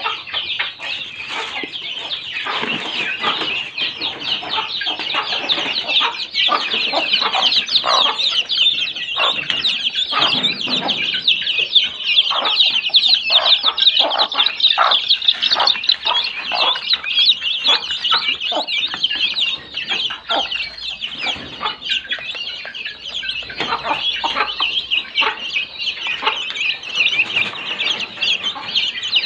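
A brood of chicks peeping without pause, a dense chorus of high chirps, with lower clucks scattered through it while they are being fed.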